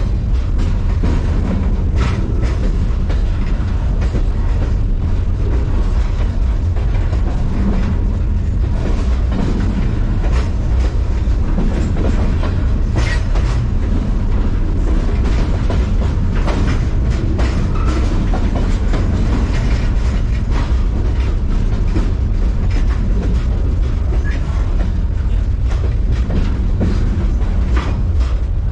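Freight train running, heard from aboard one of its cars: a steady, loud low rumble and rattle, with wheels clicking irregularly over rail joints.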